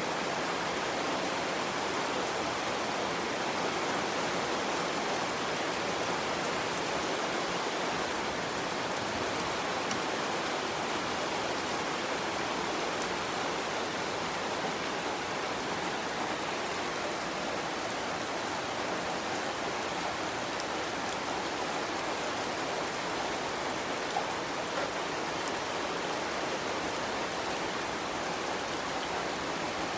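Continuous rain falling, a steady even hiss of water.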